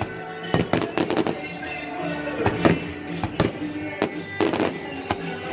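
Fireworks going off in an irregular series of sharp bangs, about a dozen in a few seconds, over music with sustained tones.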